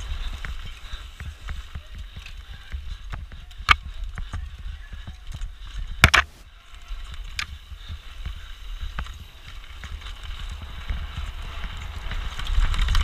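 Mountain bike descending a rough trail at race speed: tyres rolling over rock and gravel, the bike rattling, and sharp knocks from impacts, the loudest about six seconds in. Wind rumbles on the camera's microphone.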